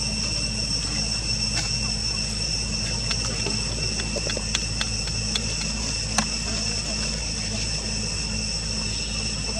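Steady high-pitched drone of insects such as crickets or cicadas, with a few faint clicks and leaf rustles scattered through the middle.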